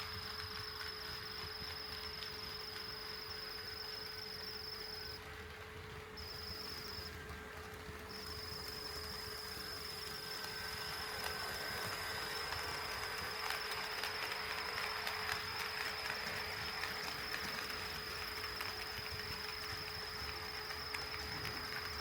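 HO-scale model train running on the layout: a steady high-pitched electrical whine, with a light rattle of wheels on track that grows a little louder about halfway through. The whine drops out twice for a moment.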